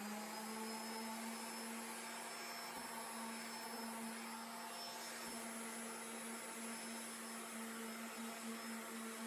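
Random orbital sander running at a steady speed with an even motor hum, its worn hook-and-loop pad failing to hold the sandpaper.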